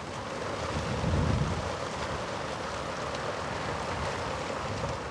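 Wind outdoors, heard as a steady rushing hiss on the microphone with a low gust about a second in.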